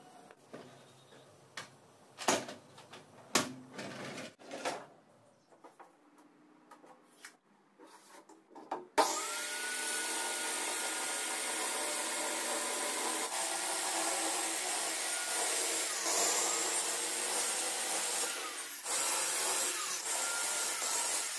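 Scattered knocks and taps of wood and tools being handled, then an electric circular saw starts abruptly about nine seconds in and runs loudly with a high whine, cutting wood, for about ten seconds.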